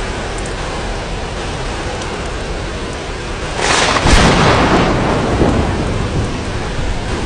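Steady rain falling, with a loud clap of thunder about halfway through that rumbles away over a couple of seconds.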